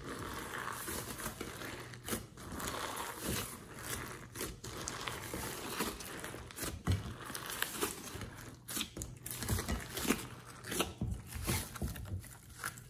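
Glossy slime being squeezed, pressed and folded by hand, making irregular sticky clicks and crackles.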